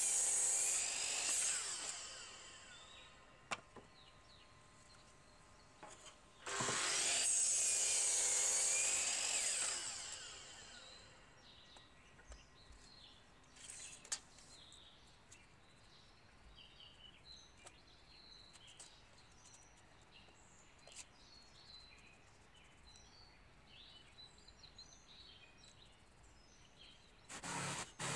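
DeWalt compound miter saw cutting through a board, then spinning down as the trigger is released. A second cut starts about six seconds in and winds down over the following four seconds. Birds chirp faintly in the quiet stretch that follows, and a cordless jigsaw starts just before the end.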